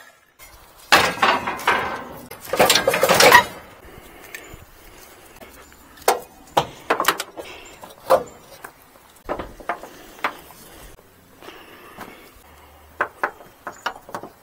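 Scrap steel clanking and rattling as it is shifted on a mini truck's bed, loud and dense for the first few seconds, then scattered metal clicks and knocks. Near the end a ratchet strap clicks as it is cinched down over the load.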